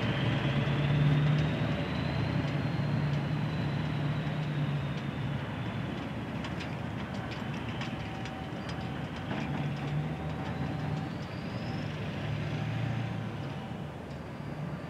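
Norfolk Southern double-stack intermodal freight cars rolling past and away: steel wheels rumbling and clicking over the rail joints, with a thin high wheel squeal wavering in pitch. The sound fades as the train recedes.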